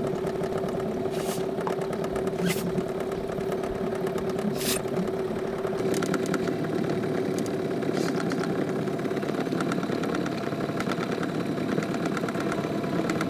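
Small fishing boat's Yamaha outboard motor idling steadily. A few brief clatters come in the first five seconds.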